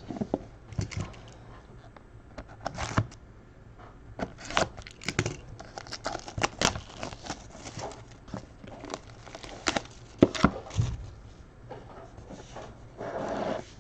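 Trading cards and their plastic and cardboard packaging being handled at close range: irregular crinkling, rustling and sharp little clicks and scrapes.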